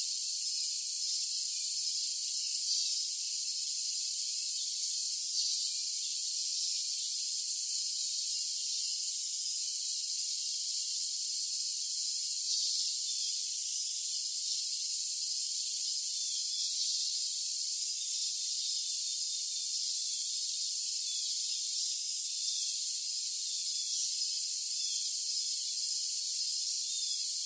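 Crickets trilling as a steady, high-pitched hiss with one shrill held tone over it, and songbirds chirping faintly now and then. The sound is all high, with no low sound at all.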